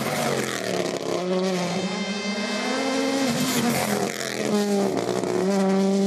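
Toyota GR Yaris Rally1's 1.6-litre turbocharged four-cylinder engine pulling hard at high revs. The revs climb, drop back twice, then climb again near the end.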